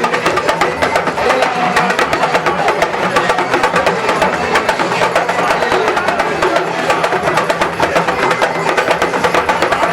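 Music driven by fast, busy hand percussion with a steady rhythm of sharp, woodblock-like strikes.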